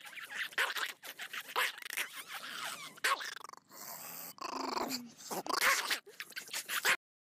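Small long-haired dog growling and grumbling in a string of uneven vocal bursts, snout raised and mouth open. The sound stops abruptly near the end.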